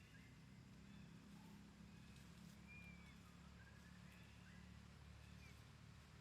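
Near silence: a faint low hum, with a few faint short high chirps scattered through it.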